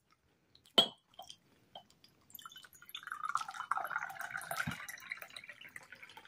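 Pink lemonade poured from a glass pitcher into a glass tumbler, a steady splashing pour that starts about two seconds in and runs on as the glass fills. A single sharp click comes about a second in, before the pour.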